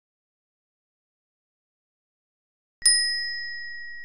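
Silence, then near the end a single bell-ding sound effect: one sharp strike with a clear high ringing tone that slowly fades.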